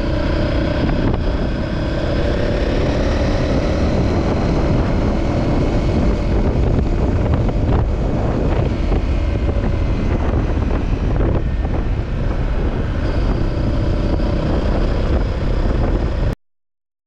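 Motorcycle engine running steadily at road speed, heard from on board, with wind buffeting the microphone. The sound cuts off suddenly just before the end.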